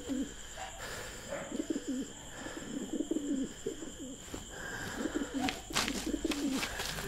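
Domestic pigeon cooing repeatedly in low, warbling calls. A few sharp clicks come about six seconds in.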